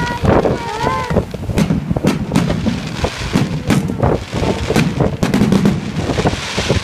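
Aerial firework shells bursting overhead in a rapid, irregular series of bangs and crackles.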